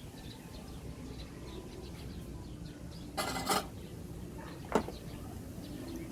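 Brief clatter of small hard objects being handled, followed a little over a second later by a single sharp click.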